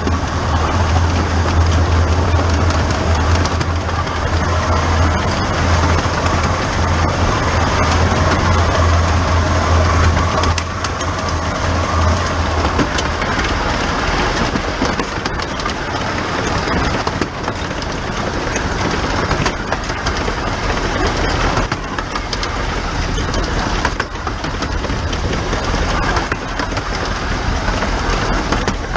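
15-inch-gauge steam locomotive 'The Bug' on the move, heard close up from on the engine: a steady rushing running noise with wheels clicking over rail joints. A strong low hum runs under it and stops a little under halfway through.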